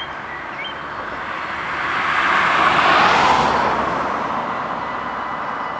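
A car driving past on the road, its tyre and engine noise swelling to a peak about halfway through and then fading. About four seconds in, the Dutch level crossing's warning bells start ringing faintly as the crossing activates for an approaching train.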